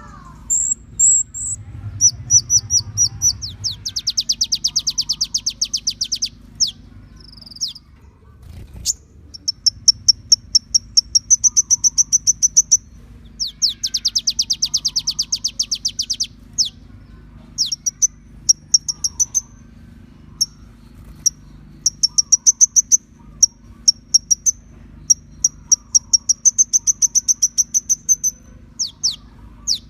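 Kolibri ninja sunbird masteran song with its fill phrases: high, very fast trills and rapid strings of sharp chirps, coming in repeated bursts of a second or two, over a faint steady low hum.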